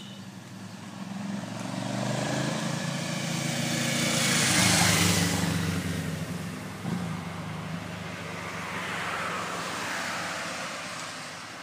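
A car drives past on the road, its engine and tyre noise swelling to a peak about five seconds in and then fading away. A second, softer vehicle sound swells and fades near the end.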